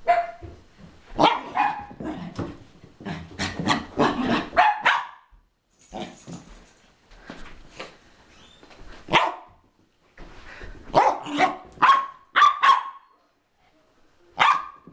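Bichon Frise giving excited play barks during a bout of zoomies: short, sharp barks in quick clusters with brief pauses between, falling quieter near the end.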